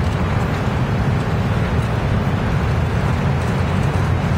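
Steady low rumble of city street and traffic noise.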